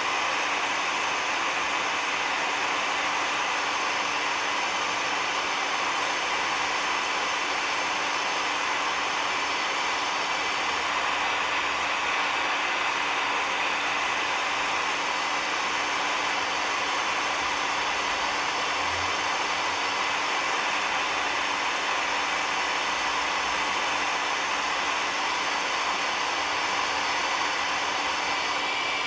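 Heat gun running steadily, blowing hot air onto a polyethylene kayak hull to melt a plastic welding rod into a crack. It makes an even rush of air with a faint steady hum underneath.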